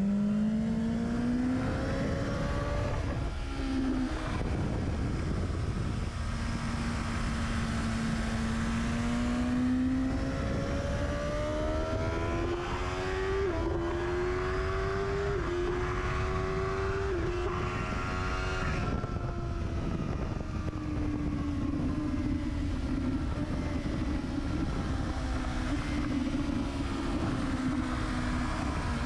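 Motorcycle engine and exhaust heard from right beside the silencer, pulling hard with the pitch rising, then stepping up through several quick upshifts in the middle before the revs fall away as the throttle is eased. Wind rushes steadily over the microphone.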